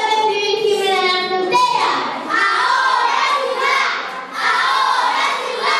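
Unaccompanied singing in high, child-like voices: a long held note for about the first second and a half, then quicker sung phrases.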